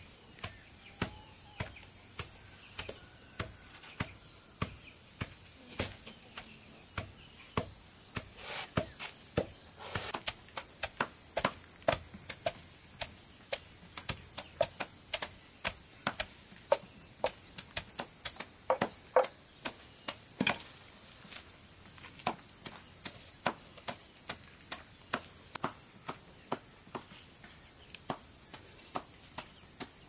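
Steady high-pitched insect chorus, two shrill tones held throughout, under a run of short sharp knocks, about one to two a second, coming thickest in the middle.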